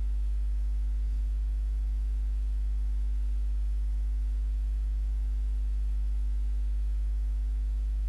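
Steady low electrical hum of about 50 Hz with fainter overtones, unchanging throughout: mains hum picked up in the recording chain.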